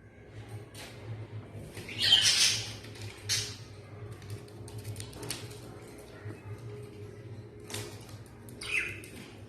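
Pet budgerigars giving a few short, harsh squawks, the loudest about two seconds in and another pair near the end, with faint scratchy chatter between over a low steady hum.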